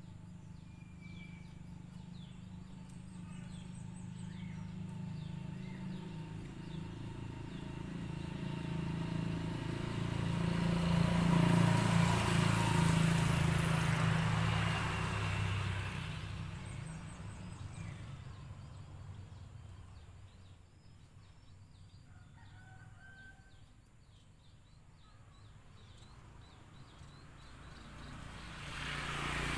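Outdoor rural ambience with small birds chirping and a low rumble that builds to a peak near the middle and then fades away, like something passing by.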